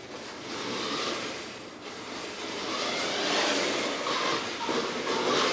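Radio-controlled car driving: its motor whirring and its tyres rushing over the floor, getting louder and softer as it speeds up and slows.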